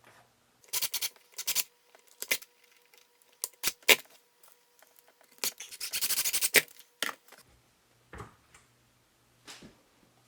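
Small hand tools being handled: a string of sharp clicks and taps, with two short rattling bursts about a second in and again around six seconds in.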